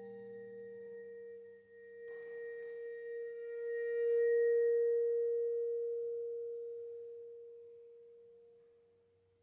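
A single ringing metal tone from the ensemble's percussion, held at one pitch, swelling about four seconds in and then slowly dying away. Low string notes fade out in the first second.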